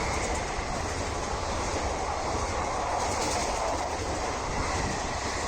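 An Indian Railways superfast express train running through a station at speed without stopping: a steady rumble and clatter of its coaches' wheels on the rails.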